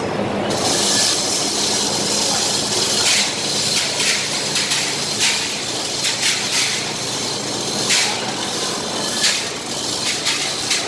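Irregular metallic clanks and knocks from the steel scaffolding and chain rigging as a large centrifugal blower housing is hoisted into place, over a steady loud hiss and low hum.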